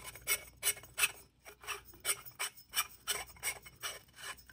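A2 buffer tube being screwed by hand into an AR-15 lower receiver, its metal threads rasping in short strokes about three a second as it is turned.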